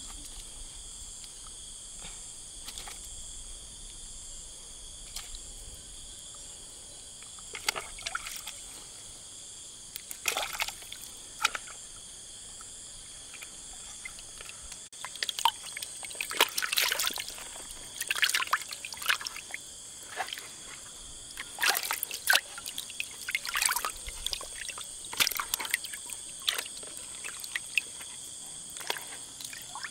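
Lake water splashing and trickling in irregular bursts, sparse at first and more frequent in the second half, over a steady high-pitched drone of insects.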